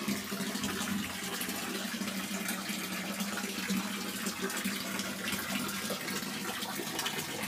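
Water running steadily from an old stone fountain (çeşme).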